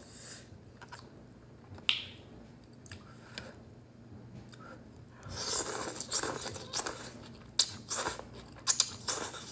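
Close-up mouth sounds of eating udon noodles: mostly quiet for the first few seconds apart from one click, then chewing with wet mouth clicks and smacks from about five seconds in.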